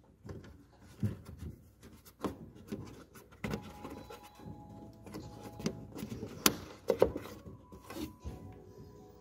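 Irregular plastic clicks, knocks and rubbing from an Opel Zafira headlight's bulb holder and round rear cover being fitted back on by hand, the cover twisted into place.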